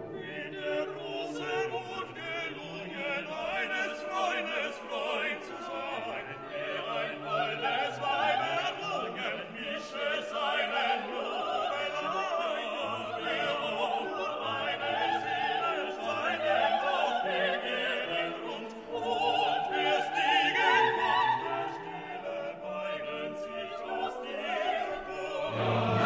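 Background music: a classical piece with an operatic voice singing long, wavering notes with vibrato over an orchestra.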